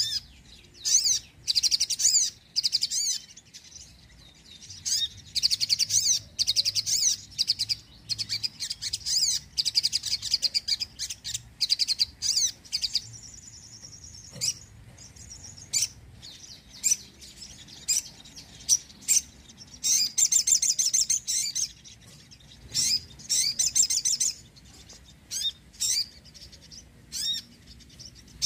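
Crimson sunbird (sogon) singing: high, rapid twittering trills in bursts of a second or two, with short pauses between them.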